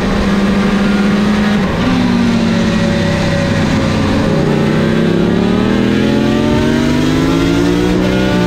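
Two-stroke sport bike engine with Martin Johnson expansion-chamber pipes, heard from on board at speed: it holds steady revs, changes note about two seconds in and eases off through a corner, then rises steadily under acceleration until a gear change near the end. A steady rush of wind runs underneath.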